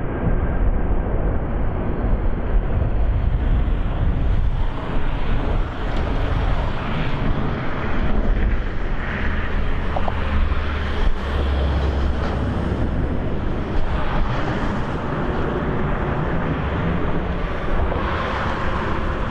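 Airbus A340-600's four Rolls-Royce Trent 500 jet engines at climb power just after takeoff: a steady, deep rumble with a rushing hiss that grows brighter after a few seconds.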